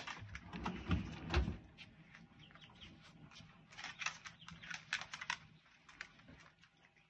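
Dogs' claws clicking and tapping on a laminate floor in scattered clusters, with a few dull thumps about a second in.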